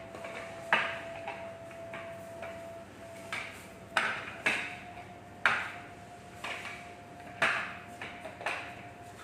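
Hard plastic parts of a hairdryer clicking and knocking together as it is assembled by hand: about seven sharp, irregular knocks. A faint steady tone hums underneath.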